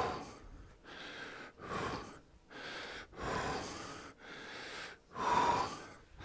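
A man breathing hard while doing bodyweight deadlifts: a steady run of audible in- and out-breaths, about one a second, with short silences between them. The breath about five seconds in is the loudest.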